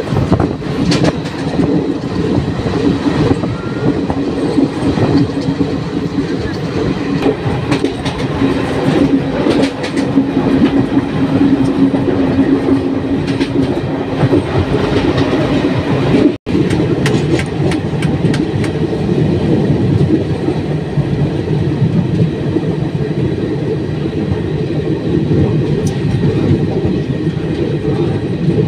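Express passenger train running along the track, heard from inside the coach: a steady rumble of wheels on rail with scattered clicks from the rail joints and a steady low hum through the first half. The sound breaks off for an instant about halfway.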